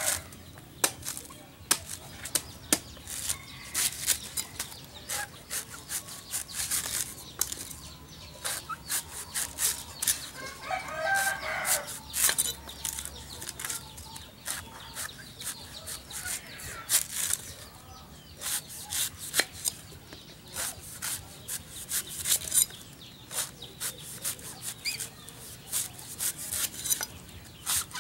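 Machete strokes chopping and shaving the husk off a young green coconut on a wooden chopping stump: many sharp, irregular cuts and knocks. A rooster crows once about eleven seconds in.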